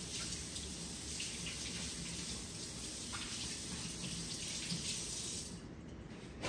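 Kitchen tap running steadily, then shut off near the end.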